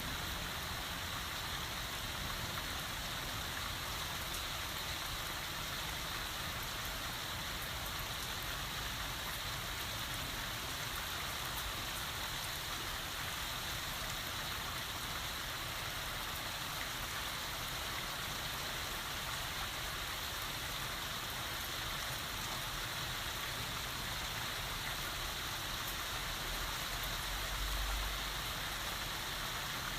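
Steady heavy rain falling and pattering on surfaces, with a brief low rumble near the end.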